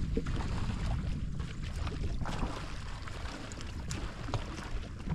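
Wind buffeting the microphone, a steady low rumble, over water sloshing around a drifting jetski, with a few faint ticks.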